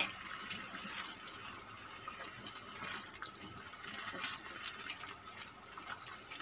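Thick tomato pizza sauce simmering in a pan, bubbling and popping softly as it cooks down to thicken. A spatula stirs through it in the second half.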